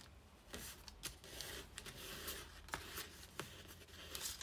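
Sheet of kami origami paper being folded by hand, rustling faintly as an edge is brought to a crease and pressed flat, with a few short crackles.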